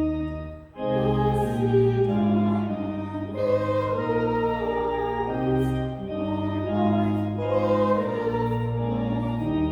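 A hymn sung by voices with pipe-organ accompaniment, in held notes that change about once a second. The sound breaks off briefly under a second in, between lines, then resumes.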